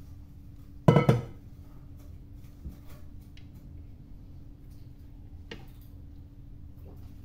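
A metal spoon clanks loudly against a stainless steel mixing bowl about a second in, ringing briefly, then a couple of light clinks and taps as sticky chocolate-cornflake mixture is scooped out and shaped into small heaps.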